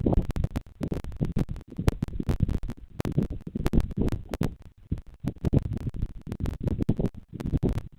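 Low rumbling with dense, irregular crackles and scratches close on a cliff nest camera's microphone.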